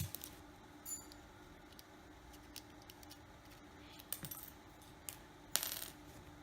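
Light clicks and taps from small repair tools and parts being handled on a smartphone during disassembly. There is a sharp click at the start, a few scattered taps, and a louder short scraping clatter about five and a half seconds in, over a faint steady hum.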